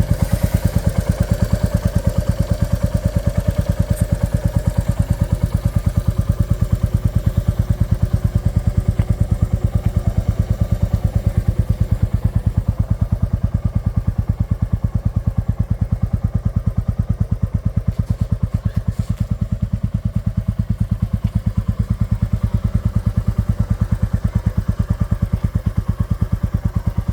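Royal Enfield Classic 350's single-cylinder engine idling, its exhaust beating in a steady, even rhythm with no revving.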